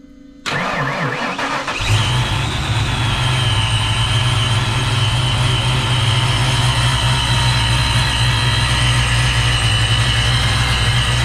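A boosted Ford V8 in a Fox-body Mustang is cranked and fires about half a second in, then settles into a steady idle with a constant high whine on top. The engine has just had a stiffer blow-off valve spring fitted to cure surging under boost.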